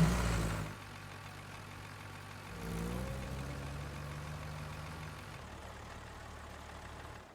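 Cartoon vehicle engine sound effect running low and steady, rising briefly about two and a half seconds in.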